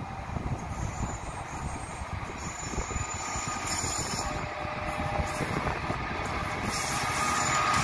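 Class 66 diesel locomotive with its two-stroke V12 engine, hauling a train of hopper wagons, approaching. The engine and the rumble of wheels on the rails grow steadily louder.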